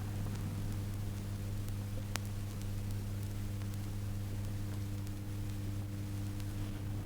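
Steady electrical hum with hiss from an old recording, with a single sharp click about two seconds in.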